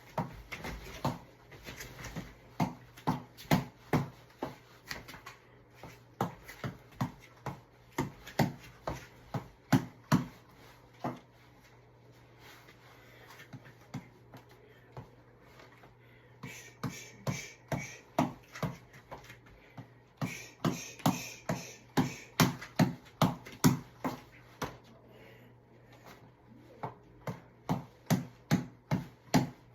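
Repeated sharp thuds, about two a second, in runs of several seconds broken by pauses, with a hissing noise over some of them.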